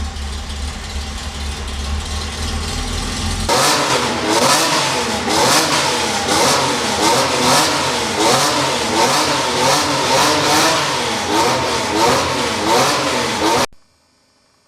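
1968 Porsche 911S's air-cooled flat-six idling with a low rumble, then from about three and a half seconds in revved loudly again and again, its pitch rising and falling repeatedly, until the sound cuts off abruptly near the end.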